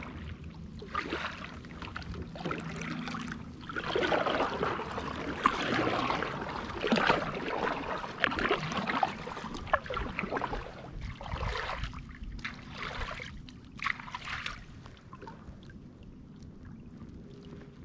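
Water splashing and trickling from a kayak paddle as it is stroked through the water, in irregular bursts that die down near the end.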